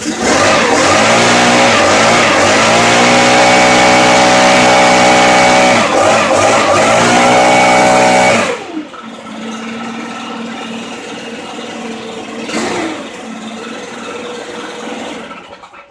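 Stihl two-stroke leaf blower running at high throttle just after a cold start in sub-zero cold, its pitch dipping a few times. About eight seconds in it drops to a lower, steady idle, and it dies away near the end.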